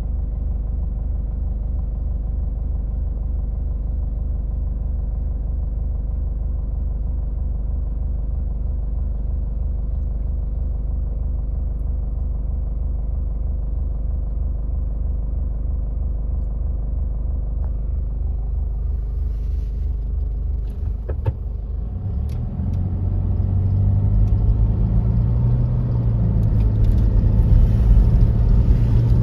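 Car engine idling steadily. About twenty seconds in there is a click, then the engine and road noise grow louder and rougher as the car moves off and speeds up.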